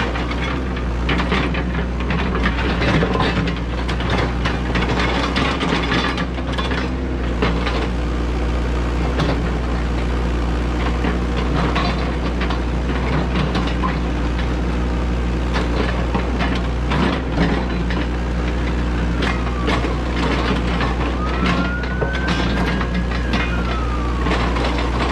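Yanmar ViO80 mini excavator's diesel engine running steadily under load, with the clatter and scrape of its bucket digging and dumping dirt and stones. Near the end a pitched whine rises and falls several times.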